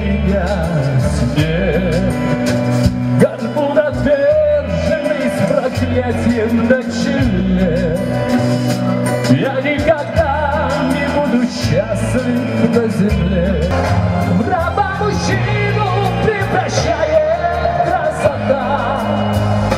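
Male pop singer singing into a handheld microphone over a loud backing track with a steady beat, amplified through the stage sound system.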